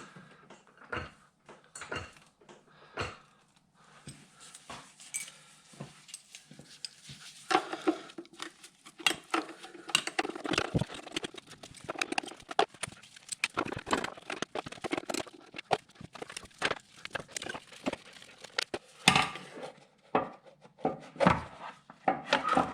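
Metallic clinks, clatters and knocks as a jack is set under the engine and worked to raise it: a few scattered clicks at first, then a long run of dense clinking and knocking.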